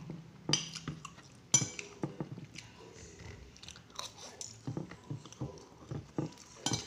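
A person eating fried noodles with a spoon: chewing, with irregular sharp clinks of the metal spoon on the ceramic plate, the loudest about a second and a half in.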